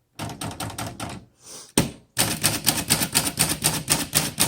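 1940 Corona Standard flat-top manual typewriter being typed on: typebars striking the platen in quick keystrokes, a short run, then one louder clack, then a fast, even run of about six or seven strokes a second.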